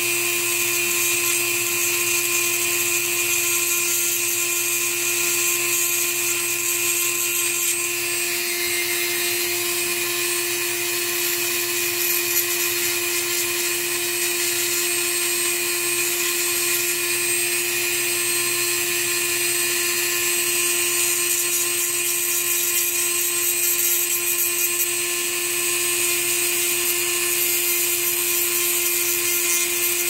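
Dremel rotary tool with a small abrasive grinding stone running at a steady high-pitched whine while it grinds down the top of an airsoft rifle's magazine latch. A hissing grind rides over the whine and shifts as the stone works the part.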